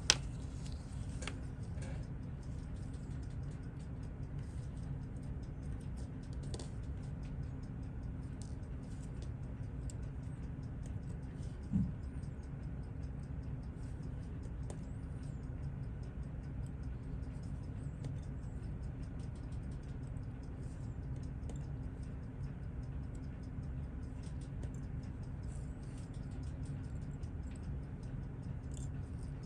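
Rapid, steady ticking of a Seiko 6139 automatic chronograph movement, still running, over a steady low hum, with a sharp click right at the start and a dull knock about twelve seconds in.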